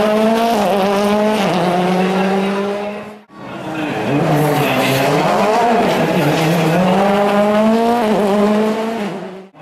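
Rally car engines, 1.6-litre turbocharged four-cylinder World Rally Cars, accelerating hard past: the engine note climbs and drops sharply at each upshift. The sound breaks off abruptly about three seconds in, and a second pass follows with the same climbing, shifting engine note.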